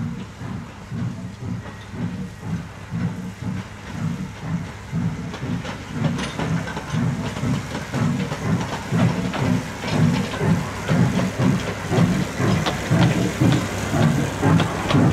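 Severn Lamb Lincoln LPG-hydraulic steam-outline locomotive approaching and passing with its coaches: a rhythmic chuffing beat of about two a second that grows louder, with the clicks of wheels over the rail joints.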